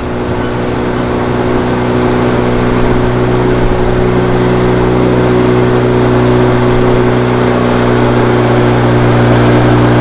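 Small river boat's outboard motor running steadily underway, a constant engine hum that grows slightly louder over the first few seconds, with water rushing along the hull.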